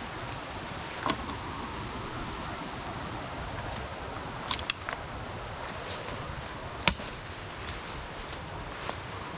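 A hiker walking on a forest trail: a steady rustling noise with a few sharp clicks underfoot, one about a second in, two close together near the middle and one later on.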